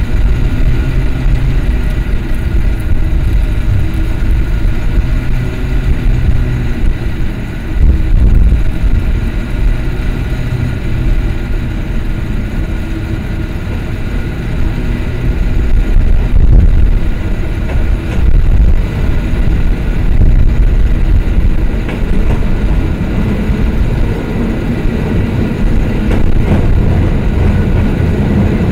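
A San Francisco cable car climbing the street toward the listener: a steady low rumble with a faint hum.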